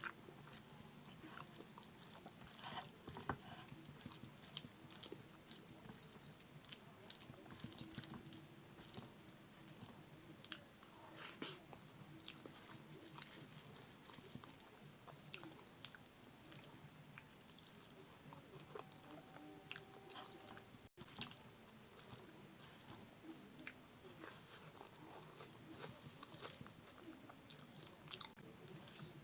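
A person eating rice, boiled potato and omelette up close: faint chewing and mouth smacking with many small scattered clicks.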